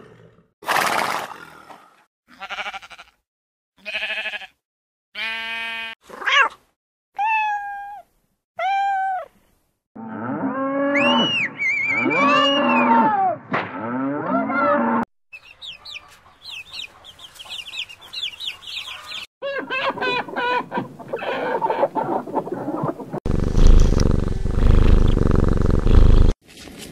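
A run of different animal calls, one clip after another: several short separate calls with gaps between, then longer, overlapping gliding calls, and near the end a loud, low, rough call lasting a few seconds.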